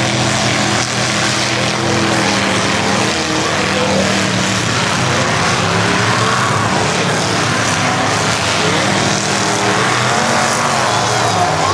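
Several demolition derby pickup trucks' engines running loud together in a steady din, their revs rising and falling over one another.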